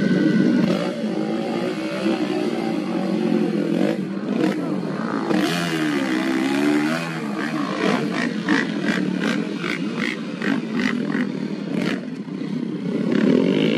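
Motocross bike engines racing on a dirt track, revving up and down as the riders work the throttle. About two-thirds of the way through, the engine note pulses in a quick run of short revs, a few a second.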